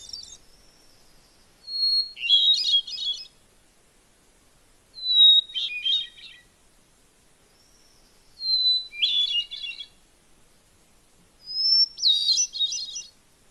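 Recorded hermit thrush song played through the Gotopceed shower light's small Bluetooth speaker: four phrases about three seconds apart, each a clear held whistle followed by a quick fluttering tumble of higher notes.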